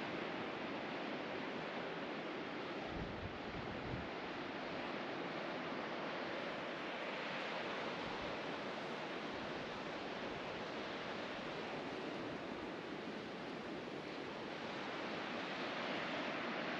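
Ocean surf washing in a steady, even rush of noise, with a few brief low thumps about three and four seconds in and again near eight seconds.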